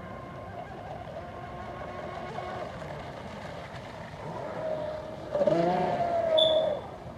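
Pro Boat UL-19 RC hydroplane's brushless motor, on a 6S LiPo, whining steadily at high speed over the hiss of spray. About five seconds in the whine grows much louder for a second and a half as the boat passes close, its pitch rising and then sliding down before it drops back.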